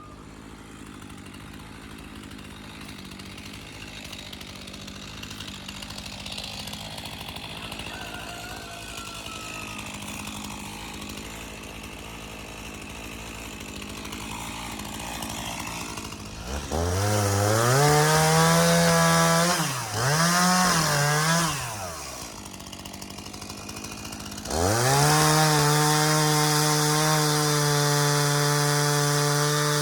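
Gasoline chainsaw revved to full throttle twice in quick succession about halfway through, dropping back to idle between, then revved again and held at high revs, dipping slightly near the end. Before that, only a low steady hum.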